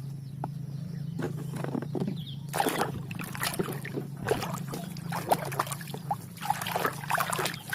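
Water splashing and sloshing in irregular bursts as a muddy toy is rinsed and scrubbed by hand in clean water, over a steady low hum.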